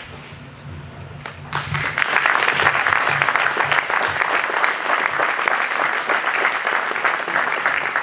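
Audience applauding, starting about a second and a half in.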